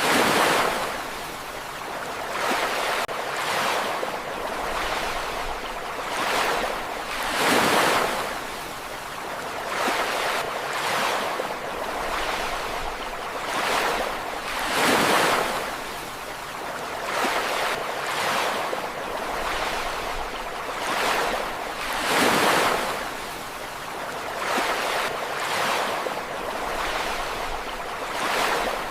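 Ocean waves breaking and washing on a shore, a steady surf hiss that swells into a louder surge every few seconds, the biggest breakers about every seven seconds.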